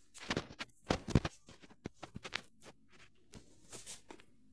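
Rustling and shuffling of people moving about, with quick scrapes and soft knocks, loudest about a second in and thinning out after that.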